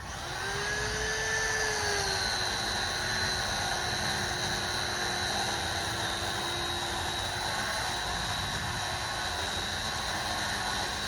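Chainsaw running at full throttle while cutting into the tree trunk: it revs up at the start, then its pitch settles a little lower and holds steady as the chain bites into the wood.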